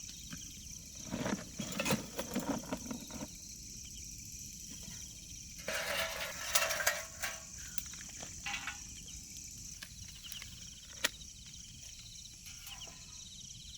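Steady high-pitched insect chorus, with scattered rustling and clicking handling noises and one sharp click about eleven seconds in.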